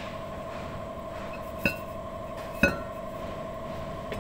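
Rear brake drum of an Isuzu Highlander being slid onto the wheel hub over the brake shoes, giving two sharp metallic clinks with a short ring, about a second apart.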